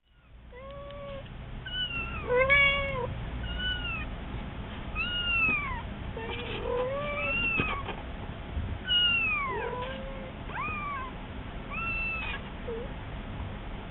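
A young kitten and its mother cat trading short meows back and forth. There are about a dozen brief, arching calls, some noticeably higher-pitched than others.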